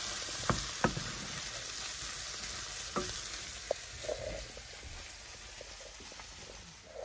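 Diced meat, vegetables and pepper paste sizzling in a stainless steel pan as a wooden spoon stirs them, frying the paste. The spoon knocks against the pan a few times in the first second and again about three seconds in, and the sizzle grows quieter toward the end.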